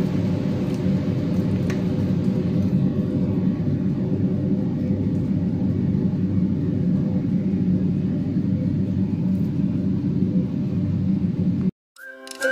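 Steady low machine hum and whir with a few steady tones in it. It cuts off abruptly near the end, and light music begins right after.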